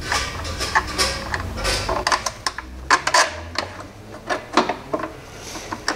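Hand ratchet clicking in irregular runs as a 10 mm bolt under the engine is loosened, with light metallic clinks of socket and tool.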